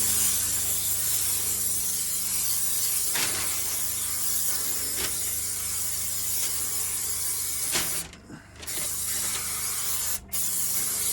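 Aerosol spray adhesive hissing from the can as headliner glue is sprayed onto a car roof, said to be coming out a bit funny. It sprays steadily for about eight seconds, stops briefly, then sprays in two more bursts with a short break between them.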